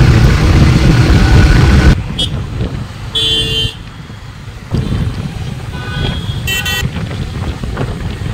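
Wind rushing over the microphone on a moving motorbike, cutting off after about two seconds to road traffic noise with two short vehicle horn toots about three seconds apart.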